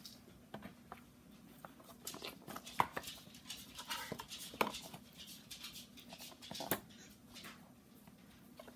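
Small cardboard blind box being handled and patted by hand, with scattered light taps and rustles.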